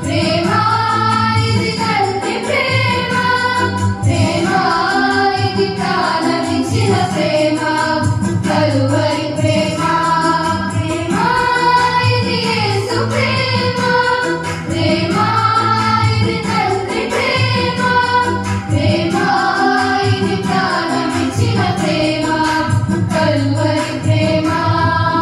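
A group of girls singing a song together into microphones, over a steady low instrumental accompaniment.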